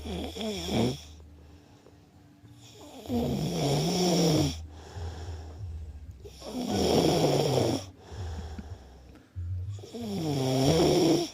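A sleeping person snoring: four snores, each about a second or more long, coming roughly every three seconds, the pitch wavering within each.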